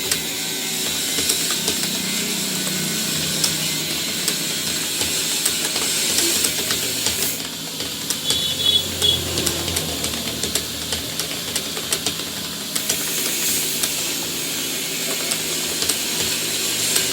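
Computer keyboard being typed on, a rapid irregular run of key clicks over a steady background hiss.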